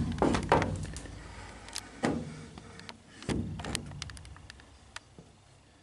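A digital level being handled and set down on a riveted aluminium sheet-metal surface: a few knocks and scrapes, then scattered lighter taps and clicks that die away toward the end.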